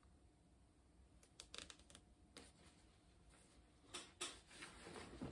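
Faint rustling of suit-jacket fabric with small sharp ticks as a seam ripper picks and cuts the collar stitching. The ticks come in a cluster between about one and two and a half seconds in, then again more densely and a little louder near the end.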